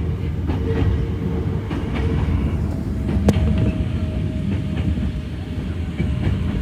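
Hakone Tozan Railway electric train running, a steady low rumble with one sharp click about halfway through.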